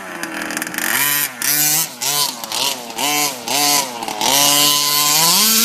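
Small two-stroke gas engine of a 1/5-scale RC truck being revved in a series of quick throttle blips, pitch rising and falling about five times, then held at high revs for over a second before dropping off sharply at the end.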